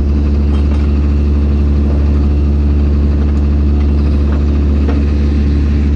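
Excavator's diesel engine running steadily at idle, a constant low drone.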